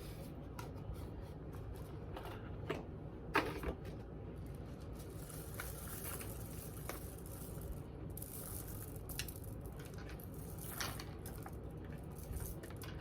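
Faint rustling and a few light clicks and taps from items being handled, with a couple of sharper ticks about three seconds in.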